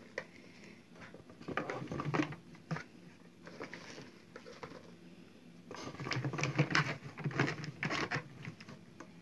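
Whole long yellow gül peppers being packed by hand into a large glass jar and pressed down: the peppers rustle and shift against one another. There are two bouts of this, one about a second and a half in and a longer one from about six seconds.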